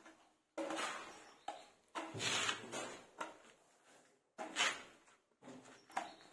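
Putty blade scraping wall putty across a plastered wall in repeated strokes, about one a second, each starting sharply and trailing off.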